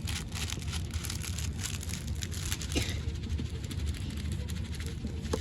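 Foam beads being worked into homemade slime, giving a dense crackling of many small clicks over a steady low rumble.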